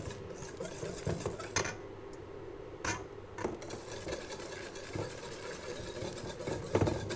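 Wire whisk stirring egg yolks in a stainless steel mixing bowl, with scattered light clinks and scrapes against the metal, as hot milk is poured in to temper the yolks for crème anglaise.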